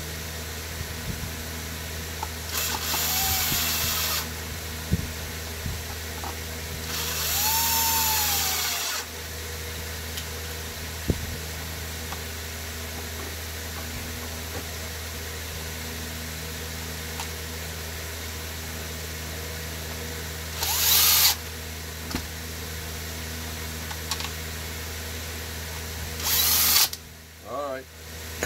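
A cordless drill spinning over a Stihl MS 290 chainsaw's two-stroke engine with the spark plug out, in four short bursts. In the second burst the drill speeds up and then winds down.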